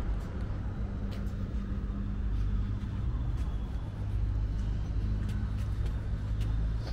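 City street sound dominated by a motor vehicle's engine running, a steady low rumble with a faint hum, and light scattered ticks over it.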